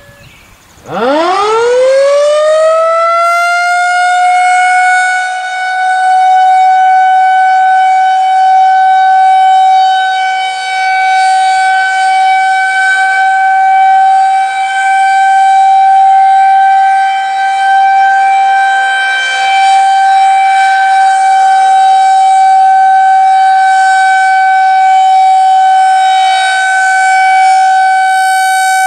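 Federal Signal 2001-130 rotating electromechanical warning siren winding up about a second in, its pitch rising steeply and levelling off within a few seconds, then sounding a steady single tone that swells and fades as the horn rotates.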